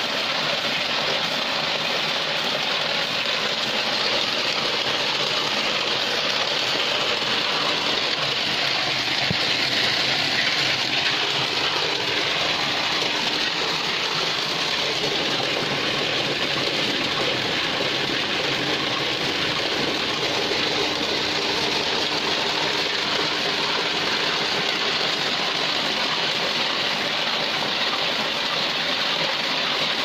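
Automatic rice washing machine running steadily, its motor humming while wet rice and water gush from the outlet pipe and splash into a tub of water.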